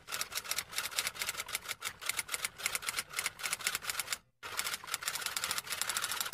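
Typewriter sound effect: rapid typewriter key clicks, several a second, with a short break about four seconds in, then stopping suddenly.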